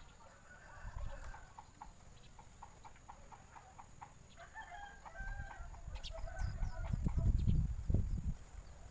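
Domestic rooster crowing among many short bird chirps. A low rumble rises about five seconds in and is loudest near the end.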